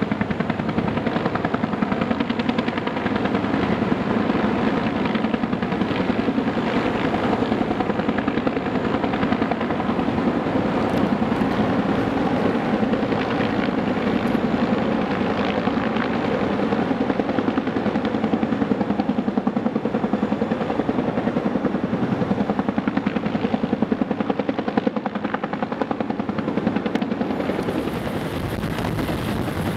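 Bell UH-1H Huey helicopter running steadily, its two-bladed main rotor beating in a fast, even rhythm. Wind noise on the microphone comes in near the end.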